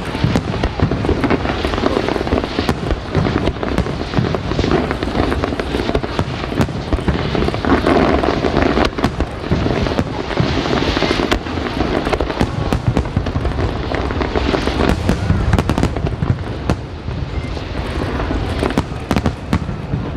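Fireworks going off in quick succession: many bangs and crackles running into one another.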